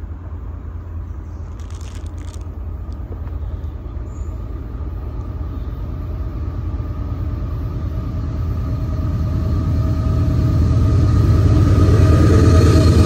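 CSX diesel freight locomotive approaching, its low rumble growing steadily louder, with a steady whine coming up over the last few seconds.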